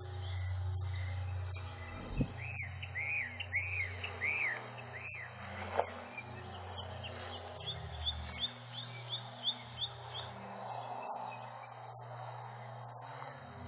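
Open-country summer ambience: insects pulsing in a fast, regular high rhythm, and birds calling, with a run of arched chirps about two to five seconds in and a string of short high notes later on.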